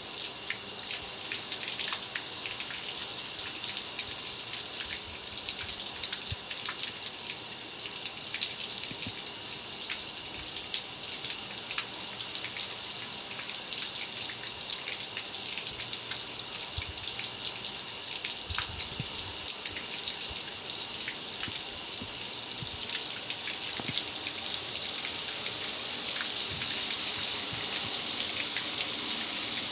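Water from a garden hose spray nozzle hissing and splashing steadily on a gas grill's lid, with drips and patter running off the metal; it grows louder near the end.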